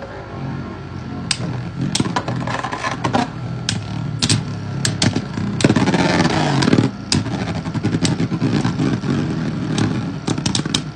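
Two tall Tornado-edition Metal Fusion Beyblades spinning in a plastic stadium: a steady whirring hum with many sharp clacks as the metal tops strike each other. About six seconds in there is a louder stretch of scraping while the two spin pressed together.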